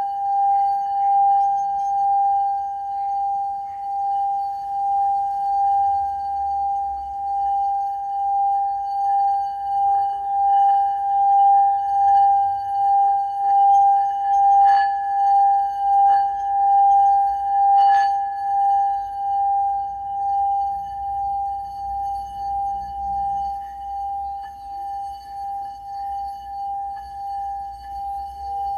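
Singing bowl ringing one steady tone with fainter overtones above it, its loudness wavering in a slow, regular pulse. A few sharp strikes ring out about halfway through.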